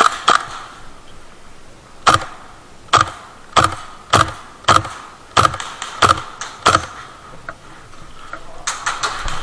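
Airsoft guns firing single shots, about ten sharp cracks spread over some seven seconds, each roughly half a second to a second after the last.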